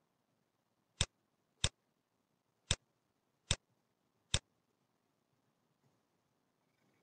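Computer mouse button clicking five times at uneven intervals over about three and a half seconds, each a short, sharp click.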